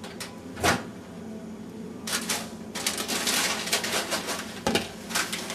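Scattered sharp clicks and crackles from a paper lunch bag of freshly microwaved popcorn, thickest from about two to four seconds in.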